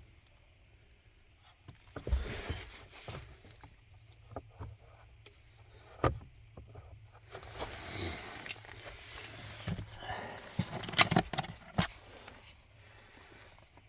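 Plastic rustling, scraping and clicking as a pleated cabin air filter and its plastic housing cover are handled and pushed into place, with a cluster of sharper clicks about eleven seconds in.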